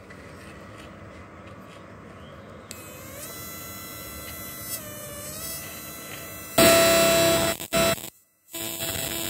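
Homemade high-voltage electric fishing inverter (12 V to 1200 V AC) buzzing while its electrode sits in water: a steady electrical buzz made of several held tones, wavering in pitch for a couple of seconds, then jumping much louder about six and a half seconds in and cutting out briefly twice near the end.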